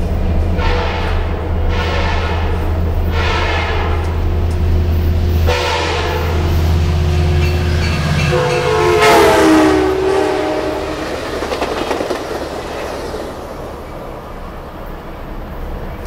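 Multi-chime horn of an Amtrak F59PHI passenger locomotive sounding four short blasts, then a longer, louder blast about eight and a half seconds in whose pitch drops as the locomotive passes at speed. Under it a freight train's cars roll by with wheel clatter, and a steady low drone stops about halfway through.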